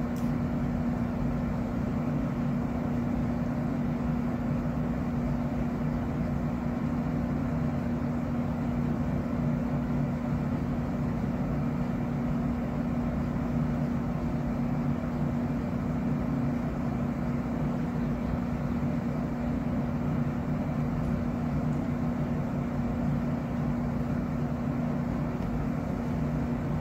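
Window-type air conditioner running: a steady low hum with an even hiss.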